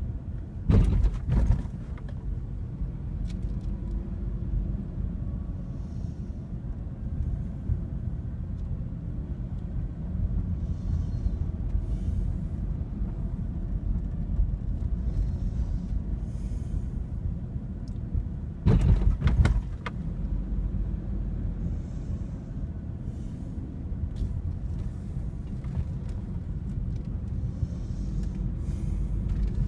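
Steady low road and engine rumble inside a slowly driven car. Twice the car jolts with a pair of loud knocks in quick succession, about a second in and again about two-thirds of the way through: the front and then the rear wheels going over a speed bump.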